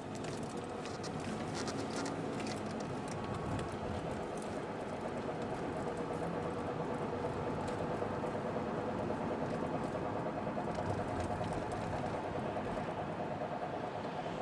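Toyota Estima ACR50W running with a steady drone and a faint whine that rises slightly, with light clicks in the first few seconds. This is the abnormal noise of a failing CVT: a rattle from around the final gear inside the transmission, heard in the cabin as something like a tree branch dragging under the passenger seat.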